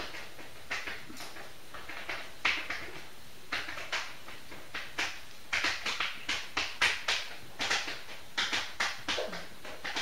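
Wet mouth sounds of eating by hand: irregular lip smacks, sucking and chewing on a piece of food, coming thicker and faster from about halfway through.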